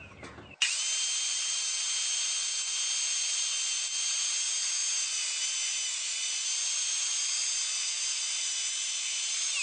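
Table saw running with a steady high whine that comes in suddenly about half a second in, while a test rip is made through a scrap of wood with the blade tilted for an angle cut. At the very end the pitch starts to fall as the blade spins down.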